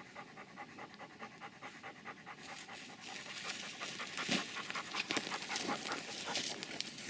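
German shorthaired pointer panting fast and evenly, louder in the second half: the dog is hot and tired after hunting in the heat.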